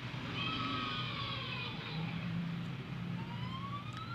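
Background sounds with no handling noise: a rooster crows some way off, its call falling in pitch during the first two seconds, over a steady low hum. Near the end a single tone slowly rises in pitch.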